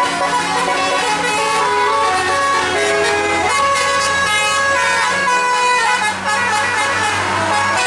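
A bus's multi-note musical air horn (telolet) playing a tune of quick, changing notes, over a steady low engine hum.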